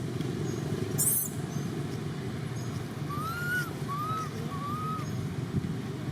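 Three short whistled animal calls in quick succession, each rising and then falling in pitch, over a steady low rumble.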